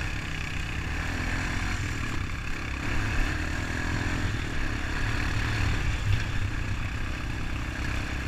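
Honda ATV engine running steadily while riding, with a couple of brief louder bumps about three and six seconds in.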